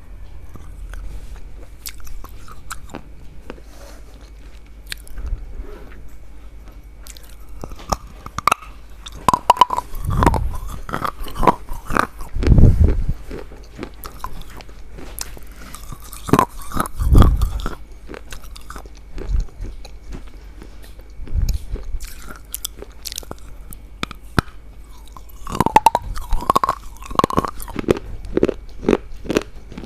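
Close-up crunchy biting and chewing in several bursts of crackly crunches, with quieter pauses between bursts.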